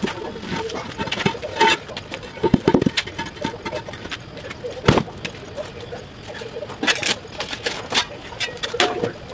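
Irregular knocks, thuds and scrapes of hand digging and of a wooden post being handled beside paving slabs, with sharp knocks a few times, the loudest about five seconds in.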